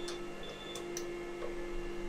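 APC Smart-UPS 3000VA beeping repeatedly while it runs on battery during a power failure. The beeping stops about two-thirds of a second in, as the mains plug is pushed back into the wall socket, with a few sharp clicks. A steady hum from the running server's fans continues underneath.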